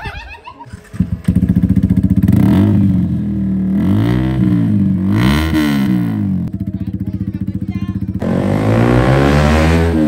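Sport motorcycle engine starting about a second in and being blipped several times, rising and falling in pitch, then running steadier before revving up and down again near the end.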